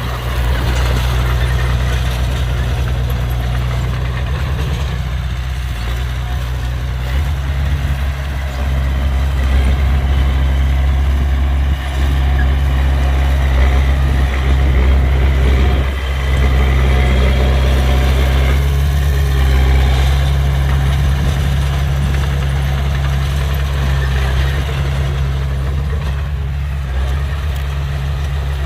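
A large engine running steadily at idle, a constant low drone.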